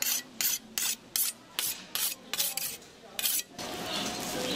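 A butcher's knife working in about nine quick rasping strokes, two to three a second, which stop about three and a half seconds in.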